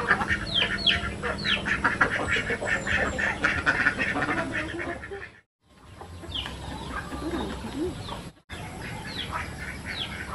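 A flock of domestic ducks calling over one another, with a small bird's repeated downward-sliding chirps. About halfway through the sound drops out briefly and comes back quieter, the chirps going on.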